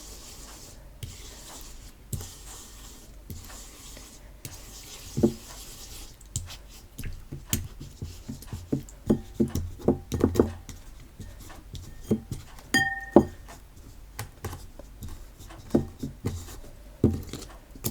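Hands kneading and stretching homemade white PVA-glue slime: soft rubbing at first, then irregular sticky pops and squelches as the slime is pulled and pressed.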